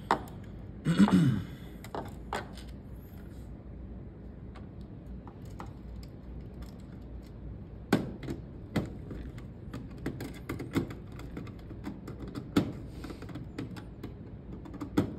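Scattered small clicks and taps as a screwdriver works the screw terminals of a System Sensor COSMOD2W interface module's plastic terminal strip, with a brief louder noise about a second in.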